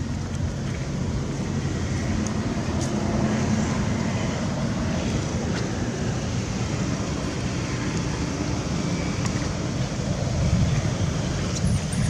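Steady low outdoor rumble of background noise, with a few faint scattered ticks.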